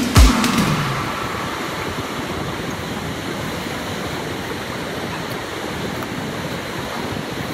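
River water rushing steadily over shallow rocky riffles. The music ends with a last drum beat in the first second.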